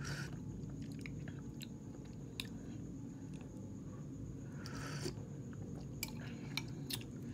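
Someone eating noodle soup: chewing, with scattered light clicks of a metal fork and spoon against a ceramic bowl. Two short breathy puffs, one at the very start and one about five seconds in, from blowing on a hot spoonful of broth.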